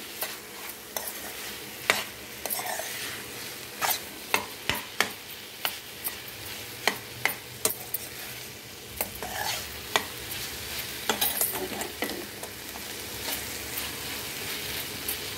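Steel spoon stirring amaranth leaves and moong dal frying in a pan, with irregular clicks and scrapes of the spoon on the pan over a steady sizzle.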